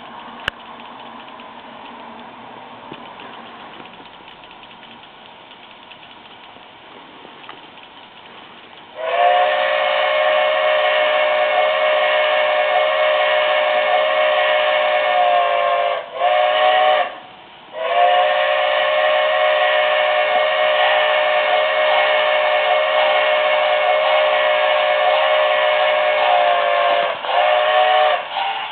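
Steam-whistle sound from the Märklin BR 10 model locomotive's sound decoder, played through its small speaker: a chord of several steady tones. After about nine seconds of faint hiss it sounds a long blast, a short one, then after a brief pause another long blast and a short one near the end.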